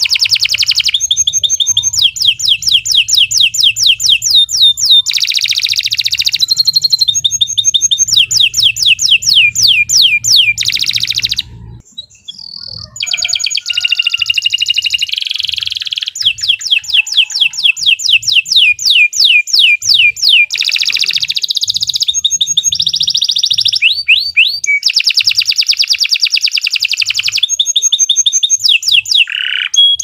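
Domestic canary singing a long song of rapid trills and fast repeated whistled notes, with one short break about twelve seconds in.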